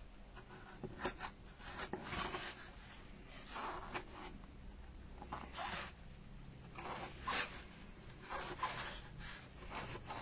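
Felt being tucked into grooves cut in a polystyrene pumpkin with a small pointed tool. Faint, irregular scraping and rubbing strokes come about once a second.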